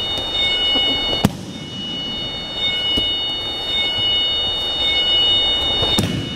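Aikido breakfalls: a body slapping and thudding onto a rubber wrestling mat as a partner is thrown, with a sharp slap about a second in, a lighter one around three seconds, and a heavier thud near the end, over a steady background hiss with faint high steady tones.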